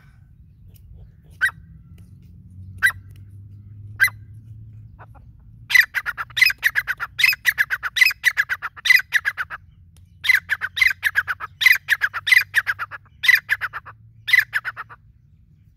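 Grey francolin calling: a few single sharp notes about a second apart, then from about six seconds in a loud, fast run of repeated high notes in groups, the bird's ringing territorial call.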